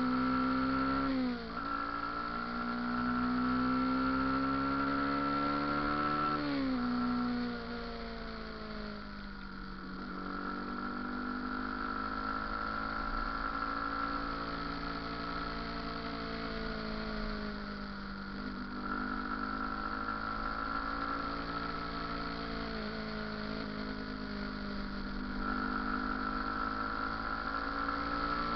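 Motorcycle engine running under way, its pitch rising under throttle and dropping sharply twice in the first seven seconds, as at gear changes or easing off. After that it rises and falls slowly, with a steady high whine alongside.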